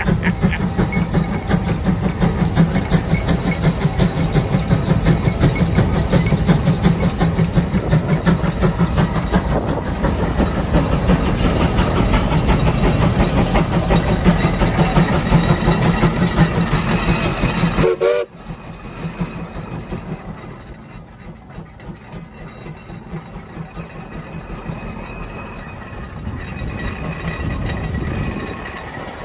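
The 150 Case steam traction engine working hard under the load of a 44-bottom plow, its exhaust chuffing in a fast, steady beat. About eighteen seconds in the sound drops suddenly and goes on quieter.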